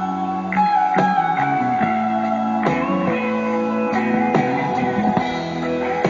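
Instrumental music led by a plucked guitar melody.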